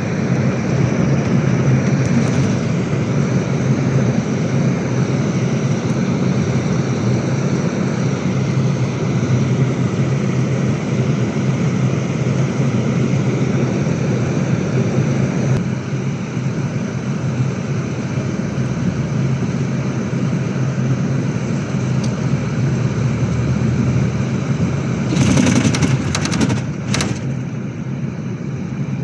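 Cabin noise on the upper deck of a moving Volvo B11RLET Plaxton Panorama double-deck coach, its six-cylinder diesel engine and the road noise making a steady drone. Near the end come two brief, louder noises.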